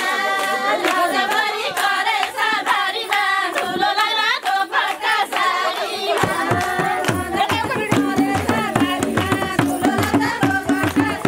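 Group of women singing a folk song with hand clapping. About six seconds in, a madal hand drum joins with a steady beat.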